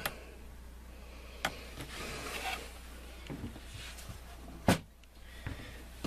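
Handling sounds from a kitchen scale and a folding knife on a plastic cutting mat: a click as the scale's button is pressed at the start, then scattered small clicks and light rubbing, and one sharper click or knock, the loudest sound, a little before the end.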